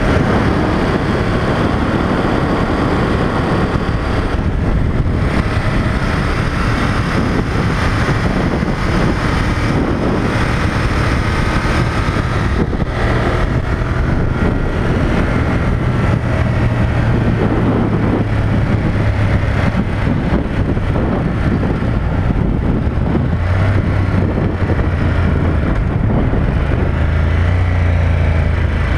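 Ducati Monster 1200 S motorcycle's L-twin engine under way at moderate speed during its break-in, mixed with heavy wind rush on the microphone. The engine's low note comes through more clearly in the second half and shifts up and down in pitch a few times with the throttle.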